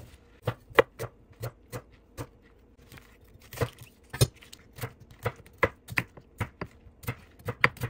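Chef's knife chopping green onions, ginger and onion on a cutting board: sharp knocks of the blade on the board, about two to three a second, with a pause of about a second before the middle.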